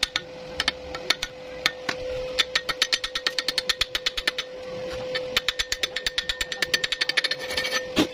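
A hammer tapping on metal in quick strikes: a few scattered taps, then two runs of about five or six a second with a short pause between, over a steady hum.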